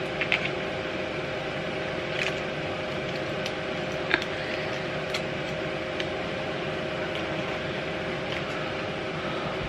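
Steady machine hum with a low, even tone running under it, and a few light clicks, the sharpest about four seconds in.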